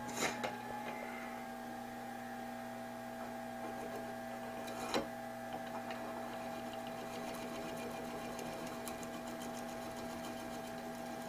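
Rikon 70-100 mini wood lathe running under its half-horsepower motor, a steady whine with a low hum beneath, as a knife held as a turning tool scrapes a spinning branch blank. There are two knocks, one near the start and one about halfway through, and light rapid ticking of the blade on the uneven wood in the second half.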